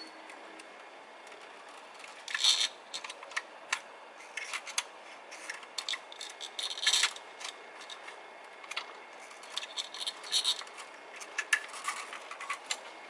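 Hand tool clicking and scraping against the timing chain area of a MINI Cooper S cylinder head, working loose fragments of a shattered plastic timing chain guide. The clicks and taps are irregular, with a few short, louder scrapes.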